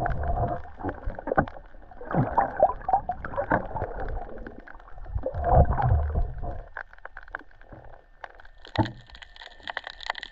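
Muffled water sloshing and gurgling around an underwater camera as a snorkeller swims, coming in surges every couple of seconds. Near the end come quieter short clicks and crackles.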